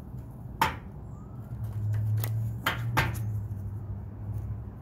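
Deck of tarot cards being shuffled by hand: a few sharp snaps and taps of the cards over soft rustling. A low steady hum sits underneath, stronger from about two seconds in.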